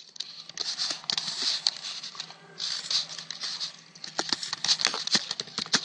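Typing on a computer keyboard: a quick run of keystrokes with a short pause about two seconds in, then more keystrokes.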